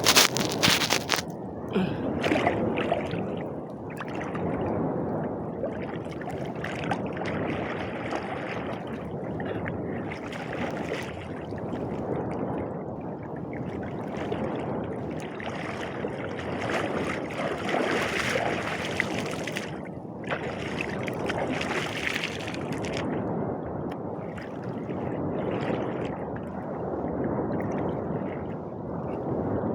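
Seawater sloshing and gurgling close to the microphone, swelling and easing every few seconds, with a loud rush of noise right at the start.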